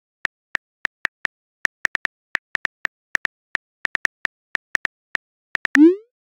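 Phone keyboard click sounds, short sharp ticks about five a second, one per letter as a text message is typed. Near the end comes a brief rising swoosh as the message is sent.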